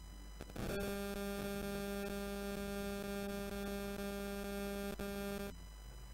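Steady electrical mains hum, a buzz with many overtones, starting with a crackle and cutting off suddenly after about five seconds, with a click just before the end.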